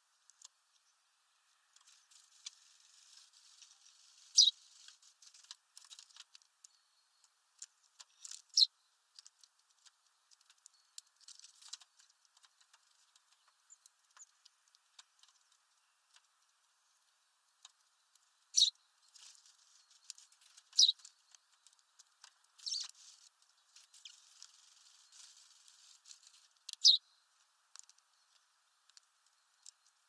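Eurasian tree sparrows pecking at sunflower seeds on a feeder tray: scattered light taps and clicks, with about six louder, sharp clicks spread through, and a quieter stretch midway.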